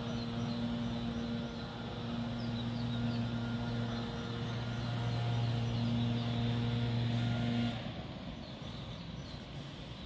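A steady low motor hum, like an engine running at a constant speed, that stops suddenly near the end. Faint short high chirps come and go over it.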